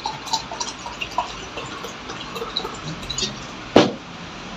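Whisky poured from a glass bottle into a drinking glass, a run of short glugs as it fills. About three-quarters of the way through comes one sharp knock, the bottle being set down on the table.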